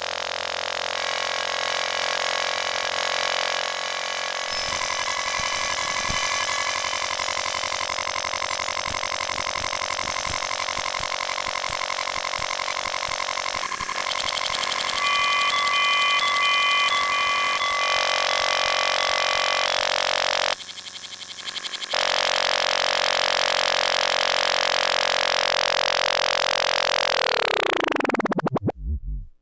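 Otari MX5050 reel-to-reel tape deck rewinding at high speed: a dense, high-pitched whirring chatter of fast-moving tape. Near the end it glides steeply down in pitch as the reels slow to a stop near the start of the tape.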